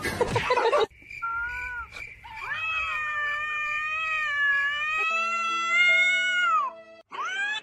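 A cat yowling in long, drawn-out, wavering calls, with a short rising call near the end. A burst of noise comes first, in the opening second.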